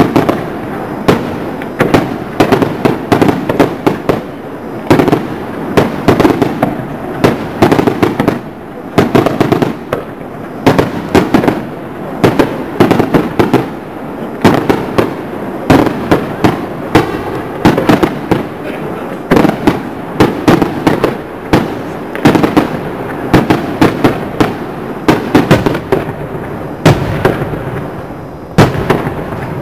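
Fireworks display: aerial shells going off in a rapid, continuous string of bangs and crackles, several reports a second, with louder blasts standing out throughout.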